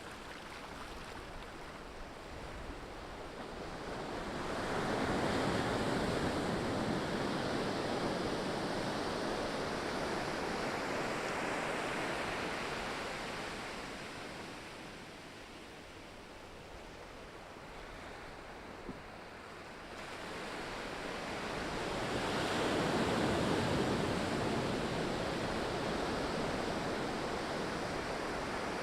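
Pacific ocean waves washing onto the shore: a steady rush of surf that swells into two loud surges, one a few seconds in and another after a quieter lull past the middle.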